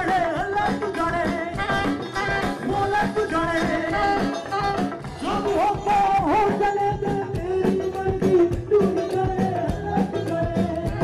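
Live band music: a singer with an ornamented, wavering melody over guitars, bass and drums, at a steady beat.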